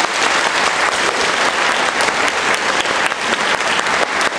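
Applause from a large group: many hands clapping steadily and densely, from the audience and from the rows of students on stage.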